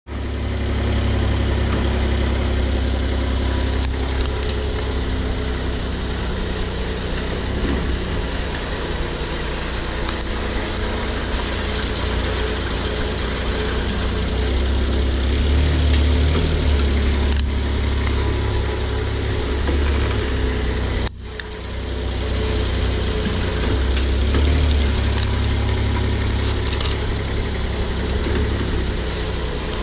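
Car engine idling as the car creeps slowly forward, a steady low rumble with a few faint clicks. The sound drops out briefly about two-thirds of the way through.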